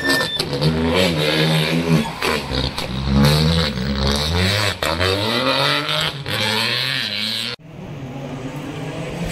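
Rally car engine revving hard as the car accelerates away, its pitch climbing, dropping at each gear change and climbing again several times. The sound cuts off abruptly about three-quarters of the way through.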